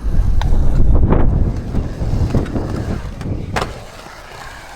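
Skateboard rolling through a skatepark bowl: a low wheel rumble, loudest in the first second and a half and then fading, with a few sharp knocks of the board along the way.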